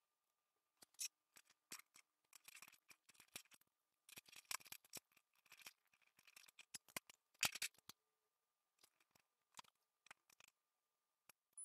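Faint, irregular clicks and taps of test leads and cable plugs being handled and pushed onto a small amplifier circuit board.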